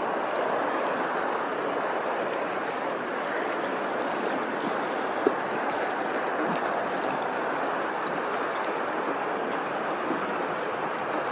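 Steady rushing noise of running water, with a single sharp click about five seconds in.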